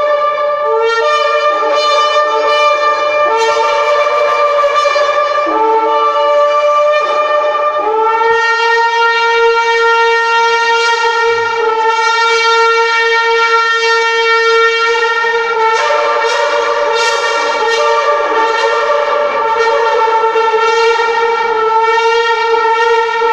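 Ram's-horn shofar blown loudly: a few short blasts with small jumps in pitch, then one long held blast from about a third of the way in.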